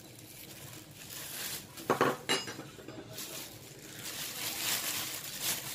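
Plastic bag crinkling as it is pulled off a metal flat beater for a stand mixer, with a short metallic clink and ring about two seconds in.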